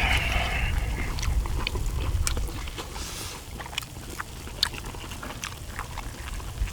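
Eating sounds: scattered light clicks and scrapes of spoons on the cauldron lid and chewing, over a steady low rumble.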